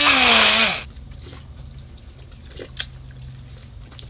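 Handheld immersion blender whirring in a small jar of thick homemade Caesar dressing, its motor pitch rising and falling as it churns, then switching off under a second in. Afterwards there are only faint small clicks and handling sounds over a low hum.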